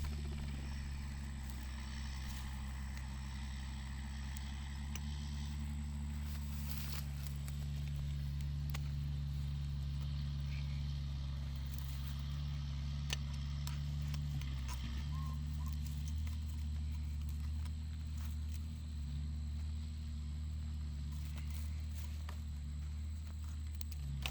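John Deere 7610 tractor's six-cylinder diesel engine running steadily, its note shifting slightly about halfway through, with a few faint clicks and knocks over it.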